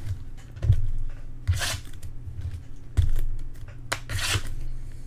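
Packaging on a box of trading cards being cut and torn open and handled, with two long tearing swishes and several dull thumps.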